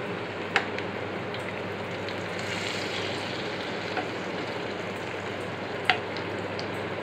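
Hot oil sizzling steadily as chickpea vadas deep-fry in a pan. A few sharp clicks come from the spoon knocking against the pan as the vadas are turned, the loudest about half a second in and about a second before the end.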